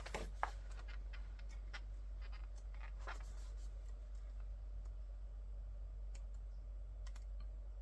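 Scattered light clicks and taps of a thick photo book's pages being handled and turned, the sharpest about half a second in, over a steady low hum.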